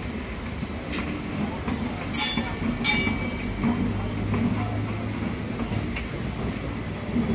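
Suburban local train running, heard from on board: a steady rumble of wheels on rail with a few sharp clicks. Two short hissing bursts come about two and three seconds in.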